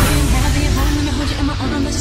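Background music with held low notes.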